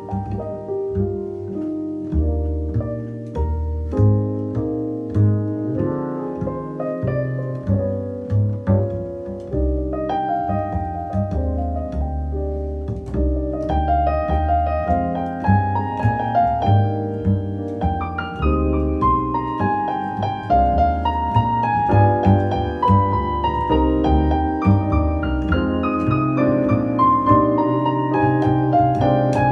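Upright double bass played pizzicato together with a digital piano, performing a duo piece. The plucked bass notes run steadily underneath, and the piano part grows busier and climbs higher from about halfway through.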